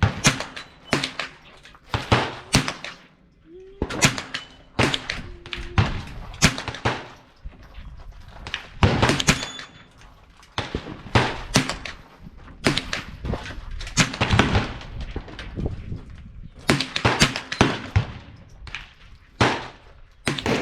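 Repeated .22 rifle shots, fired irregularly about once a second and sometimes overlapping, as several shooters fire at once.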